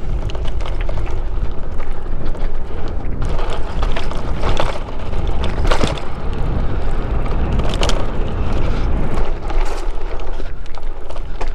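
Wind buffeting the microphone over the rumble of small tyres rolling on a dirt single-track trail as a Jackrabbit micro e-bike is ridden along it. Louder rattling comes over bumps about four to five seconds in and again near six and eight seconds.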